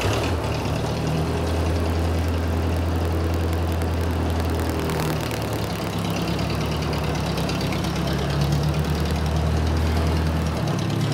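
1957 Ford 841 tractor's four-cylinder engine running steadily at low speed as the tractor backs slowly out of the shed.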